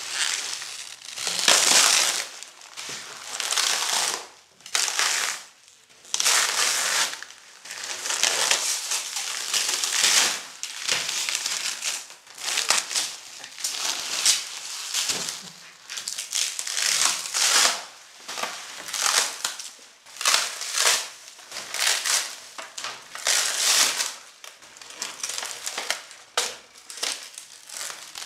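Plastic vacuum-bagging film and layered release sheets crinkling and rustling as they are pulled by hand off a composite rudder mould, in irregular bursts about every second: the part is being de-bagged after its vacuum cure.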